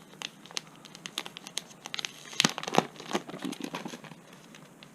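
Packaging crinkling and rustling as a comic book is pulled out of it, with a few sharper, louder crackles about two and a half seconds in.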